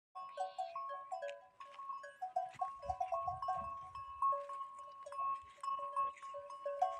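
Bells on a grazing camel herd ringing continually as the animals walk, several notes at different pitches jangling over one another.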